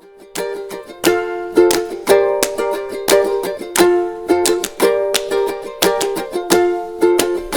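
Background music: a plucked string instrument, ukulele-like, playing a rhythmic tune with about two notes a second.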